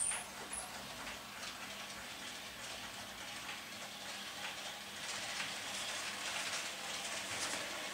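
Model trains running on the layout: irregular small clicks and rattles of wheels on the track over a light mechanical hiss.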